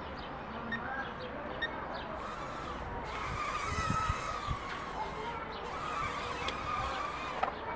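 Syma X12S Nano micro quadcopter's four tiny motors whining, the pitch wavering up and down as the throttle and direction change, with a few low thumps about halfway through.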